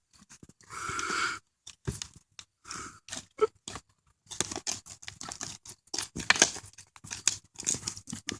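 Shovel digging into rocky soil: irregular crunches and scrapes, with sharp knocks where the blade strikes buried rock, and a longer scrape about a second in.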